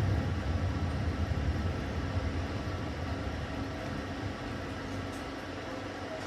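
Passenger train running on the rails: a steady low rumble and rolling noise that slowly grows quieter.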